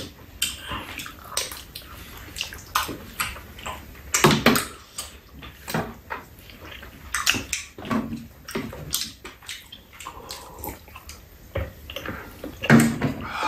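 Eating sounds at a meal: metal fork and spoon clicking and scraping against bowls and a metal tray, with wet chewing and slurping of saucy rice cakes. There is a louder sip from a mug near the end.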